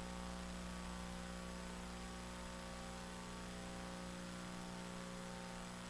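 Steady electrical mains hum, a buzzy stack of tones, over a faint even hiss.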